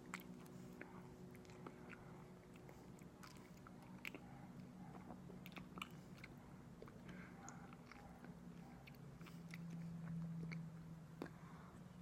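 Close-miked chewing and biting of aloe vera: faint, scattered wet, sticky mouth clicks. A steady low hum runs underneath.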